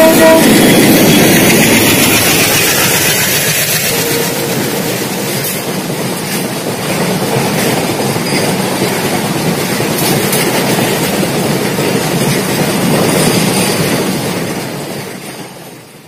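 A WDG5 diesel locomotive's horn cuts off just after the start, then a rake of BLC container flat wagons rolls past with wheels clattering over the rail joints. The rumble fades out near the end.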